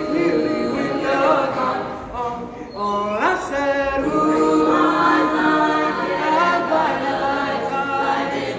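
Unaccompanied voices singing together in harmony, a cappella. About three seconds in, after a brief dip, one voice slides upward in pitch before the harmony continues.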